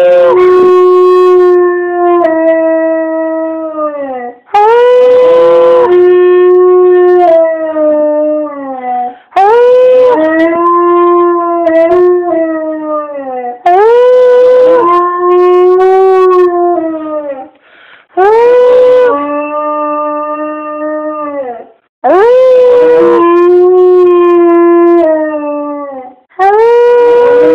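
A dog howling in a series of about six long howls. Each starts with a quick rise, holds, then slides down a step to a lower held pitch before breaking off.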